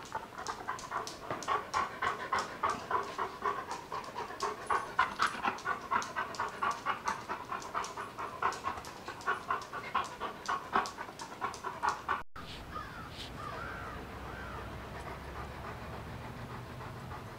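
A dog panting rapidly and rhythmically, about three breaths a second. About twelve seconds in it cuts off abruptly, and a quieter steady low hum follows with only faint panting.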